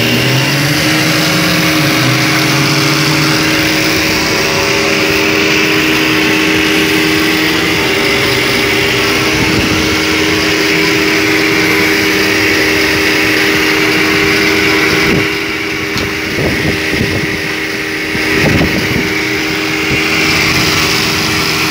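A motor running steadily with a constant hum over a hiss, dipping a little in level with a few knocks near the end.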